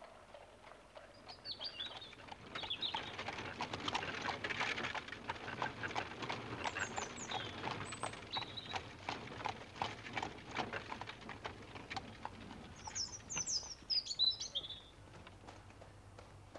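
Hooves of a horse pulling a two-wheeled trap clip-clopping on a gravel drive, starting about two seconds in and easing off near the end. Birds chirp now and then, with a quick run of chirps near the end.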